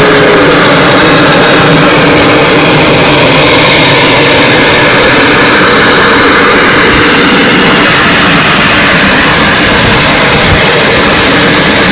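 Norfolk & Western 475 steam locomotive working by close at hand: a loud, steady rush of noise with no clear beat. The tail of a steam whistle blast dies away right at the start.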